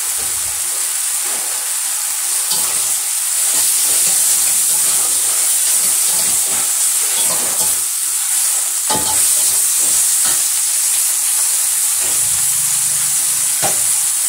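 Baby sawi (baby bok choy) sizzling as it is stir-fried in a metal wok, with a slotted metal spatula scraping and knocking against the pan as it is turned.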